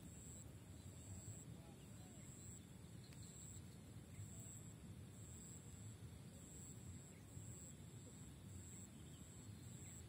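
Near silence: faint outdoor ambience, a low rumble with a faint high-pitched pulse repeating about once a second.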